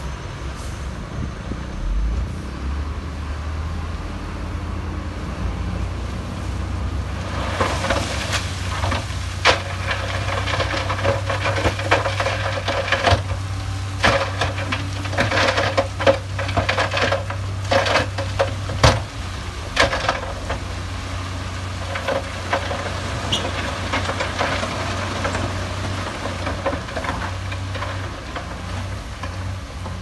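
Heavy earthmoving machine's diesel engine running steadily, with many loud clanks and scraping of rock and steel from about 7 to 21 seconds in.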